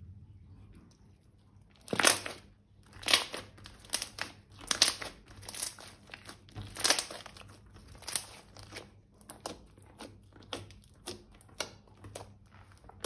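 Slime being squeezed and kneaded by hand, making a string of short crackling, crunchy squishes that begin about two seconds in and come roughly one or two a second.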